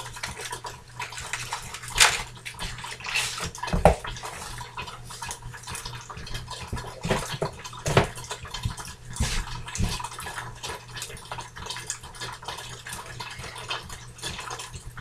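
Crumbled tofu sizzling steadily in oil in a covered skillet, with scattered clicks and crinkles of plastic packaging being handled and several sharper knocks.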